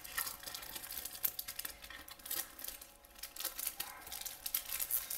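Clear plastic cover film on a diamond painting canvas crinkling and crackling as it is lifted and handled, a steady run of sharp crackles that grows busier near the end.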